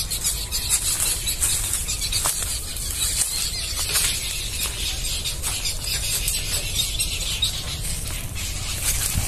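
Outdoor ambience: a steady low rumble under a hiss, with scattered faint crackles.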